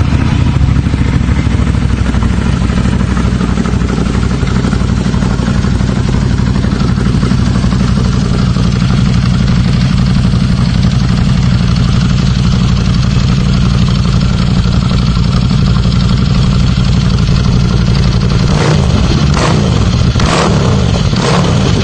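Ducati Scrambler's air-cooled L-twin engine running through a Werkes USA slip-on exhaust, idling steadily after start-up. Near the end it is given several quick throttle blips.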